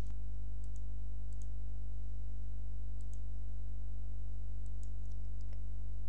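Steady low electrical mains hum, with several faint, short clicks scattered through it, as from a computer mouse while the slides are worked.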